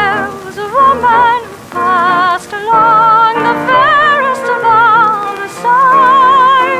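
Music: a high melody held in long notes with a wide vibrato, over sustained accompanying chords.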